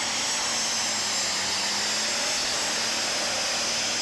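Super stock pulling tractor's turbocharged engine running at full throttle as it drags the weight-transfer sled, a steady loud rush of noise with a strong high hiss.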